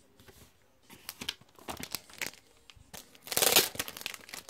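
Hands handling a book and its packaging: scattered light taps and rustles, then a loud crinkling of packaging a little over three seconds in.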